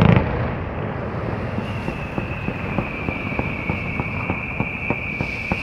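Fireworks crackling: a dense, irregular patter of small sharp pops after a loud burst fades at the start. A high steady whistle comes in about one and a half seconds in and sinks slightly in pitch.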